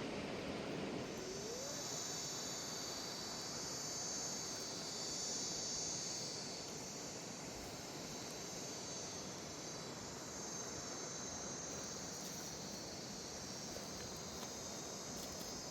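Steady rushing of a mountain river, with a continuous high-pitched insect trill that sets in about a second in and holds steady.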